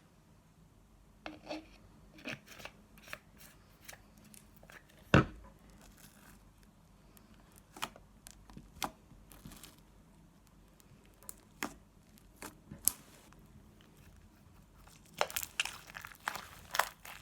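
Glittery slime being kneaded and stretched by hand with freshly added activator, giving scattered sticky clicks and pops. There is one much louder thump about five seconds in and a quick run of pops near the end.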